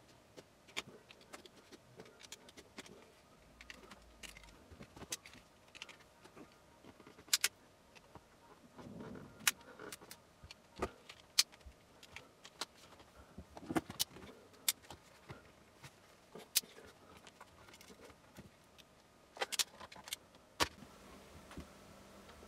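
Plastic laptop battery case being cut and pried apart along its seam with a knife: a long run of sharp, irregular clicks and cracks, with short scrapes of the blade.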